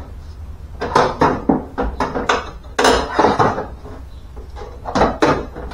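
Metal clanking and clattering inside a car door: a loosened power window regulator and motor knocking against the door's inner sheet metal as it is worked free. It comes in a run of sharp knocks about a second in, and again briefly near the end.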